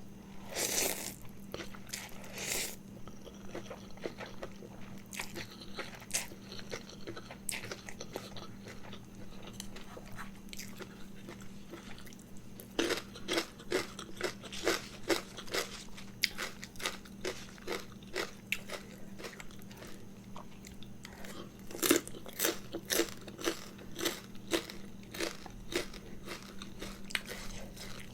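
Close-up mukbang chewing: a person biting and crunching through a big mouthful of Thai mixed noodles, in sharp clicky crunches that come in two denser runs, one around the middle and one late. A steady low hum sits underneath.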